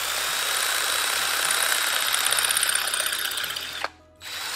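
Cordless drill spinning a glass drilling bit into a glass mosaic tile under light pressure, a steady grinding whine with a high ringing tone as the bit cuts through the glass. It stops just before four seconds in, then runs again briefly near the end.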